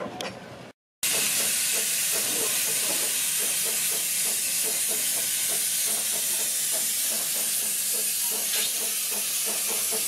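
Steady loud hiss of steam blowing from the low front end of an 1891 Hunslet Alice Class narrow-gauge steam locomotive as it hauls its train, starting about a second in after a short break.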